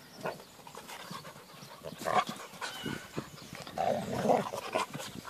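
Two Belgian Shepherd Tervuerens play-fighting, panting and making short rough vocal noises. The noises come in irregular bursts, loudest about two seconds in and again around four seconds in.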